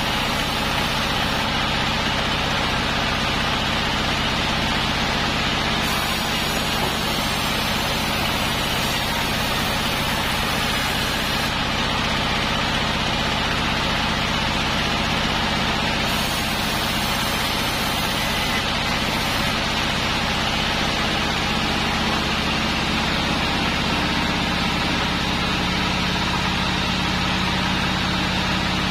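Large sawmill band saw, belt-driven by a stationary engine, running steadily while a log on the carriage is pushed through the blade. A constant mechanical hum, with a low tone growing stronger near the end.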